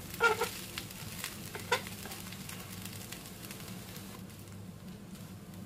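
Plastic spatula stirring and scraping poha (flattened rice) in a frying pan, with a few sharp strokes in the first two seconds, over a light sizzle of the rice frying in oil that grows quieter near the end.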